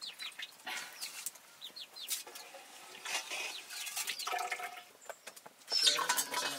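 Domestic chickens clucking, with short high falling cheeps scattered through and a few louder calls near the end, mixed with light clicks and knocks.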